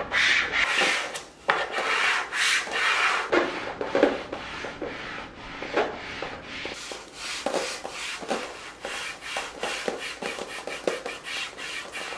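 Cotton-gloved hands rubbing across a white cabinet panel to smooth self-adhesive interior film onto it: a run of quick, dry brushing strokes that come faster in the second half.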